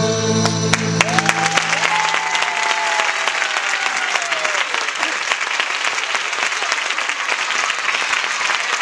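Dance music ends about a second in and an audience breaks into steady applause. One long drawn-out call rises over the clapping and slowly falls in pitch.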